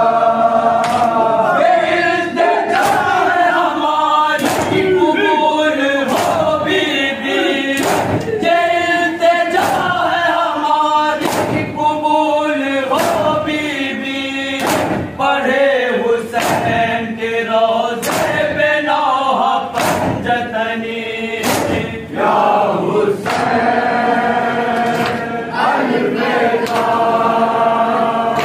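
Male voices chanting a Shia noha (mourning lament) together, over a steady beat of hands striking bare chests in matam, a little faster than one beat a second.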